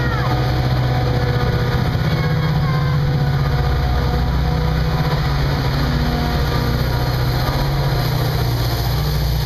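Metra push-pull commuter train rolling past, its bilevel cars running over the rails, over the steady low drone of the F40PH diesel locomotive pushing at the rear, which comes by near the end.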